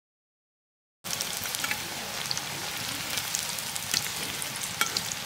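Complete silence for about a second, then radish-flower pakoras frying in hot oil in an iron karahi: a steady sizzle with scattered pops and crackles.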